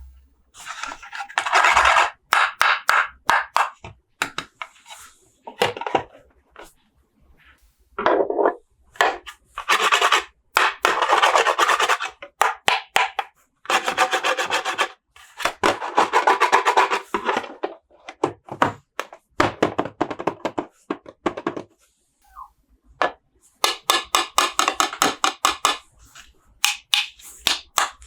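Hands handling and opening toy packaging: cardboard and plastic rubbing and scraping in spells of a second or two, with many sharp clicks and short pauses between.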